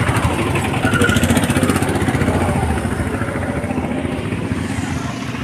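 A motorcycle engine running as it passes close by, loudest about a second in and then slowly fading away.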